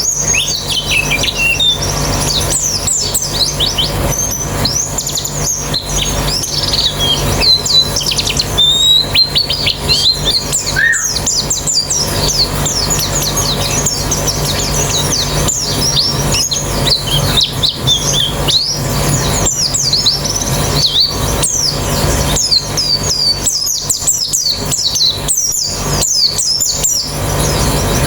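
A colony of white-eyes (pleci) singing at once: a dense, continuous chorus of rapid high twittering chirps. A steady low hum runs underneath.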